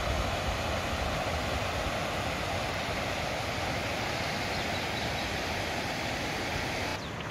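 Rushing alpine mountain stream, white water tumbling over rocks in a steady hiss, dropping slightly in level near the end.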